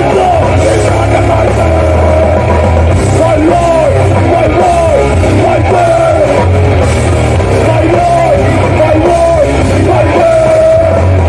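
Live hardcore band playing at full volume, with a vocalist yelling over heavy drums and guitars.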